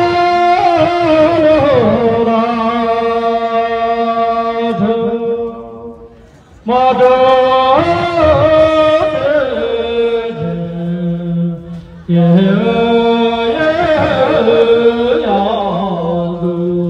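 Chant-like singing in three long phrases. Each starts loud with a quick ornamented turn of pitch, then holds a steady note that slowly fades, with short breaks about six seconds and twelve seconds in.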